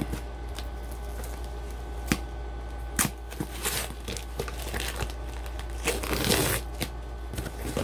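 Parcel packaging being torn open and rummaged through by hand: crinkling and tearing, with a few sharp clicks and a longer rustle about six seconds in.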